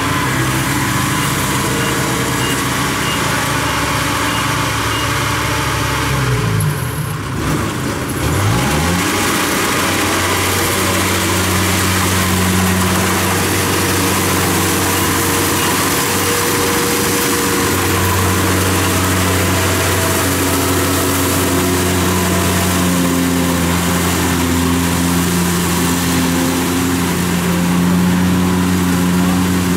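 Kubota rice combine harvester's diesel engine running steadily. About seven seconds in, its note drops and then climbs again, and it runs on at a higher, even pitch as the machine cuts rice.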